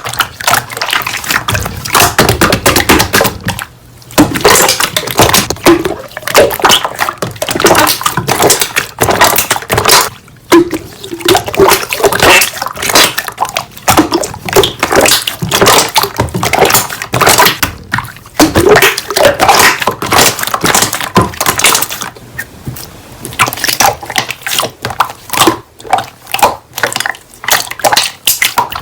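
Slime being squished, pressed and stretched by hand, with dense, irregular wet crackling and squelching clicks.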